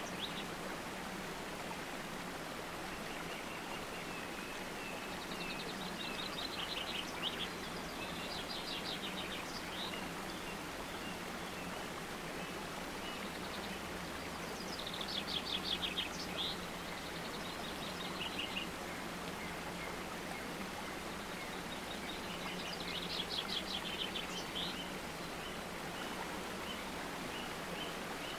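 Nature ambience: a steady rushing like running water, with songbirds trilling in short rapid runs of high notes several times. A low steady hum runs underneath.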